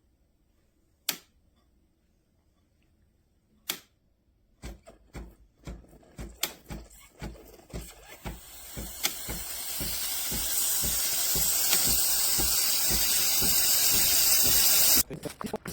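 Breville Barista Express espresso machine steaming: two clicks, then the pump pulsing about twice a second while a steam hiss builds over several seconds into a loud steady hiss, which cuts off suddenly near the end with a few knocks.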